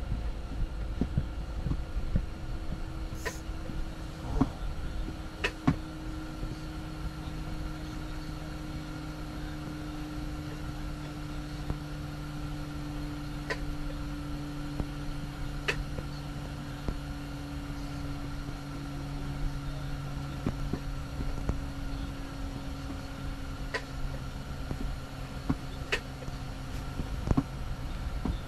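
A steady low hum over a faint hiss inside a closed ice-fishing tent in strong wind, with a dozen or so sharp ticks and snaps scattered through it.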